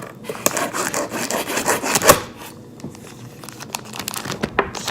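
Cardboard and paper packaging being handled, rubbing and scraping for about two seconds, with a sharp knock about two seconds in, then lighter scattered ticks and rustles.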